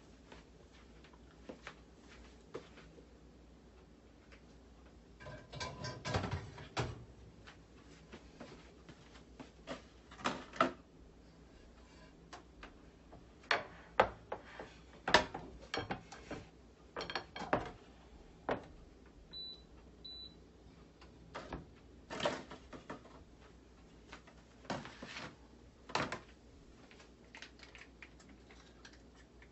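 Kitchenware being handled: a frying pan and dishes knocked and set down on a glass induction cooktop and countertop, in scattered clunks and clatters, the loudest about halfway. A little under two-thirds of the way in, two short high beeps from the cooktop's touch controls.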